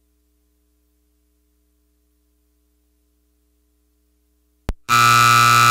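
Near silence with a faint hum, then a brief click and a loud, steady electric buzzer starting near the end: the arena time buzzer sounding the end of the cutting run.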